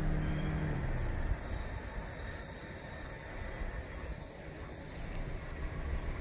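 An engine's steady drone dips slightly in pitch and fades out about a second in, leaving a low rumble.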